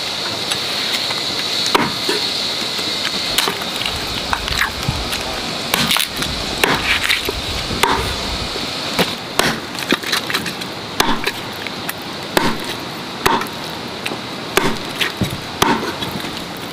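Cleaver chopping a cooked chicken, bones and all, on a thick round chopping block: a long run of sharp, irregularly spaced knocks. A steady high-pitched buzz runs underneath.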